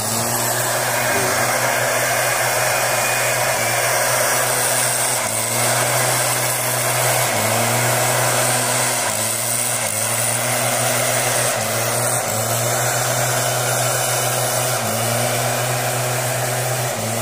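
Motorized mist blower sprayer running steadily: a small engine under constant load with the loud rush of its air blast, the engine note dipping briefly every couple of seconds.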